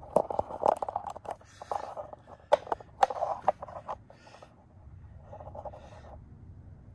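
Handling noise from a handheld phone camera being moved and repositioned: fingers rubbing and tapping near the microphone, giving a run of clicks, knocks and scraping rubs. It is busiest in the first three seconds, then turns to softer rubbing.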